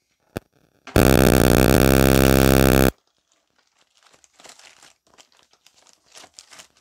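A single click, then a loud, steady buzz of about two seconds that starts and stops abruptly. After it, faint crinkling of packaging as the next graded comic is picked up.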